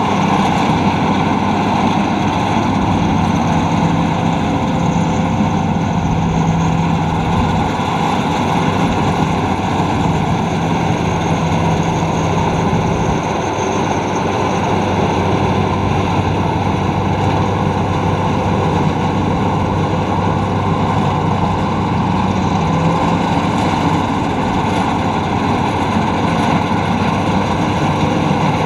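Luvol RD18 rice combine harvester running with a loud, steady engine and machinery drone and a low hum. The sound eases slightly about halfway through.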